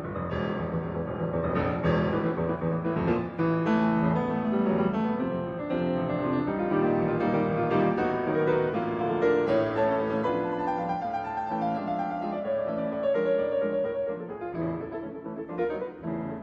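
Piano music: a busy passage of many quick notes.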